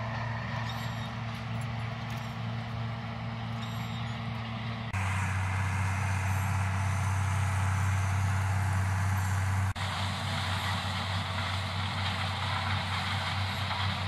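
Steady low drone of harvest machinery diesel engines, a tractor hauling a grain wagon and a John Deere combine harvesting corn. The pitch of the drone jumps to a new steady note twice, about five and ten seconds in.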